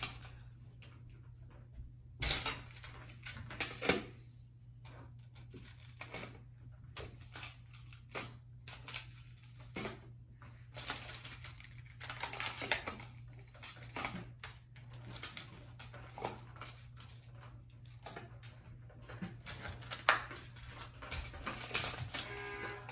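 Plastic magnetic building tiles clicking and clacking as they are picked up, snapped together and set down, in irregular runs of sharp clicks. Music comes in near the end.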